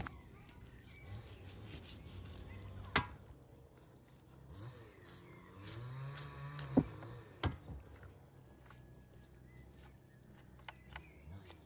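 Knife work on raw meat over a wooden cutting board: quiet slicing and handling broken by a few sharp knocks, the loudest about seven seconds in.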